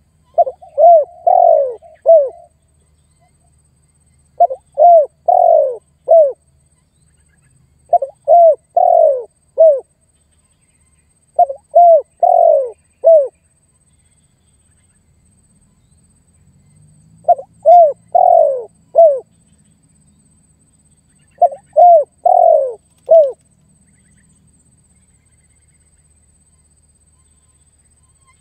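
Spotted dove (tekukur) cooing: six phrases of four or five coos, each phrase with quick opening notes and a longer drawn-out coo, repeated every few seconds with a longer pause partway through.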